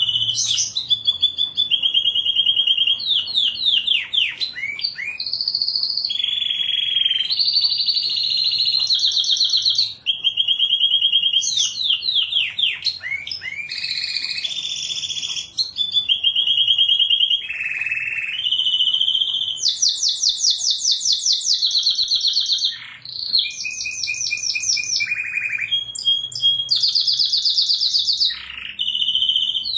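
Canary singing a continuous, high-pitched song of rapid trills and rolls, switching to a new trill every second or two with hardly a pause.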